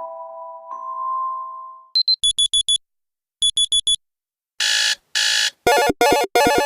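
Android phone alarm tones played one after another. A held electronic chime ends about two seconds in. A digital alarm-clock beep follows in two groups of four quick high beeps, then a harsher alarm starts with two longer blasts and goes into a fast pulsing buzz near the end.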